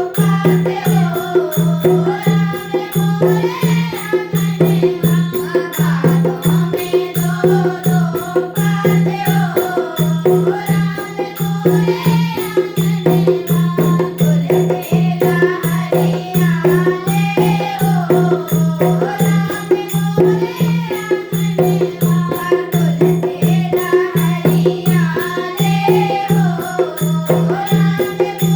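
Hindi devotional bhajan music: a wavering melody over a steady low drone, driven by a fast, even beat of rattling hand percussion.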